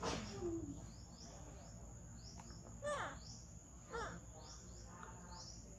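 Forest ambience: a steady high insect drone, short rising chirps repeating about every half second, and two falling calls about a second apart near the middle.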